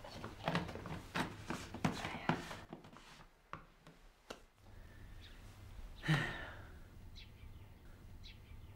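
Light knocks and clinks of a thermos food jar and a bowl being handled as soup is served. A couple of sharp clicks follow, then a person's short sigh about six seconds in.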